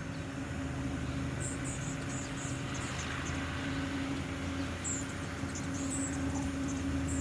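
A steady engine drone with a constant hum, slowly growing louder, and two runs of short, high chirps over it, a few a second.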